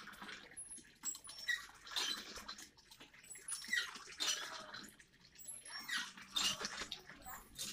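Cast-iron Dragon hand pump being worked by its lever, squeaking with each stroke about once a second as it draws water from a shallow well.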